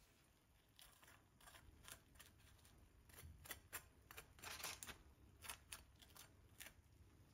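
Faint, irregular clicks and light taps of things being handled in a kitchen, coming thickest about halfway through.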